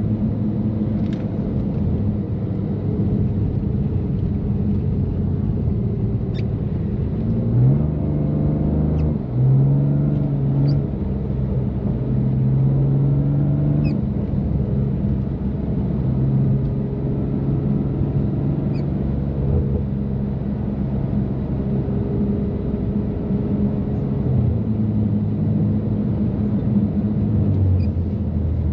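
BMW M3 Competition's twin-turbo inline-six, with catless downpipes and an always-open valved exhaust, droning steadily while cruising. About eight seconds in the revs climb, drop out for a moment, and pick up again higher, then ease back down later on.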